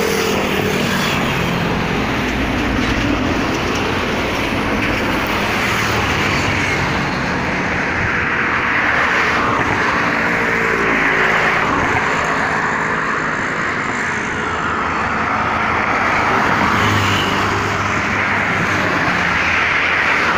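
Steady road traffic noise: vehicle engines running and passing, the sound rising and falling gently as vehicles go by.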